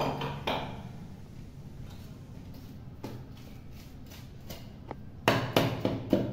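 Steel spoon scraping and knocking against a large steel plate while stirring a crumbly ladoo mixture, with a short clatter at the start and a run of about four louder strokes near the end.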